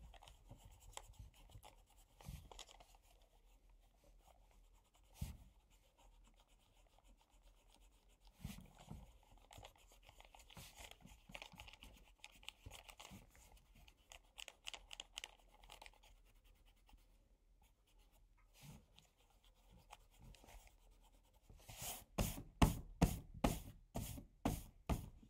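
Faint scratching of a pen writing and drawing on paper in a journal, with a few soft knocks. Near the end comes a quick run of about ten sharp taps, roughly three a second.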